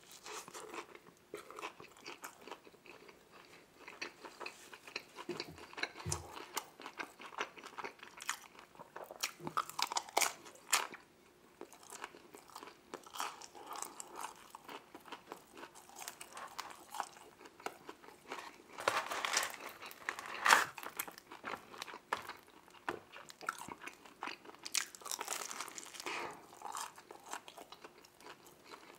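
Close-miked biting and chewing of a Little Caesars deep dish pizza slice: a run of small crunches and mouth sounds, with louder clusters of bites and chews about a third of the way in and again about two-thirds through.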